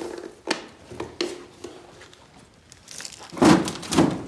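Footsteps crunching and knocking on loose debris and junk. There are a few sharp knocks in the first second and a half, then a louder crunching, crinkling scrape about three and a half seconds in.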